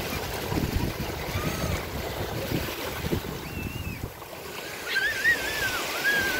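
Sea breeze buffeting the microphone over small waves washing on a sandy shore, with gusts strongest in the first few seconds. Near the end a high, wavering call rises over it.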